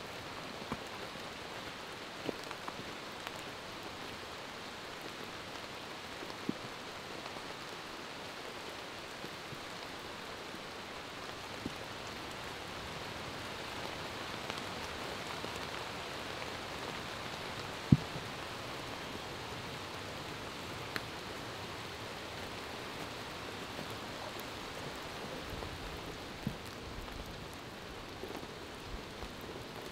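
Steady rain falling on woodland leaves, with scattered sharp ticks; one is much louder, about eighteen seconds in.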